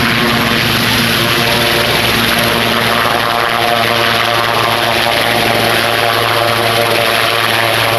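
Sikorsky S-76 helicopter lifting off and climbing close by: its rotor and twin turbine engines run loud and steady at takeoff power, with the rush of rotor wash.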